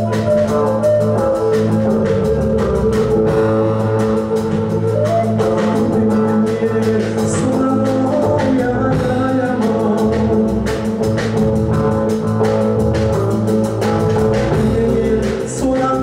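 Live band music: a wooden flute plays the melody over electric bass guitar and drums, and partway through a man's singing voice takes over the lead.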